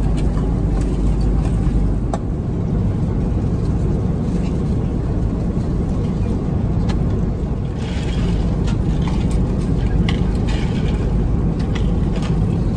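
Steady low roar of an Airbus A330-200 airliner cabin in flight, with a few light clicks.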